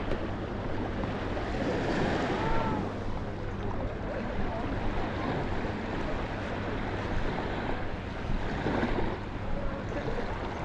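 Sea waves washing onto a sandy beach, with wind buffeting the microphone and a few faint distant voices of beachgoers.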